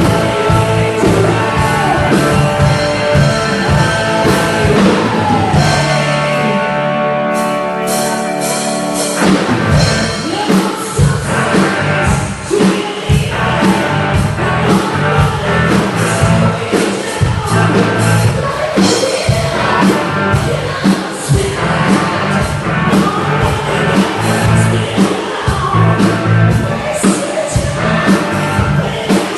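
Rock band playing a song with a singer. The drums and bass drop out about six seconds in, and the full band comes back in on a hit about three seconds later.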